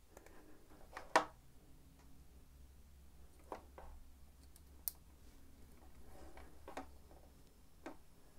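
A handful of faint clicks and small knocks as a Shimano Di2 seatpost battery is hooked up to its charger, the loudest click about a second in.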